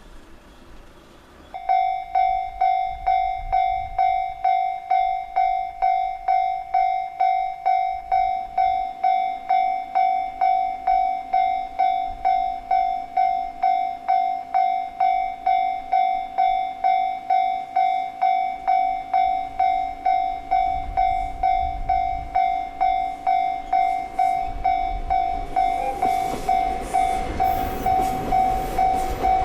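Japanese level-crossing warning bell starting suddenly about a second and a half in, ringing about twice a second. A train approaching rumbles in under it over the last few seconds.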